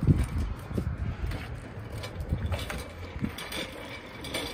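Folding wire shopping cart rolling over concrete sidewalk slabs, its wheels and frame rattling and clattering under the load of a CRT monitor, with a few short squeaks.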